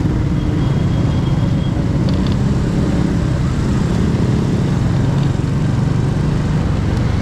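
Honda Wave 100 motorcycle ridden at a steady pace in traffic: a steady low rumble of its small single-cylinder engine and road noise.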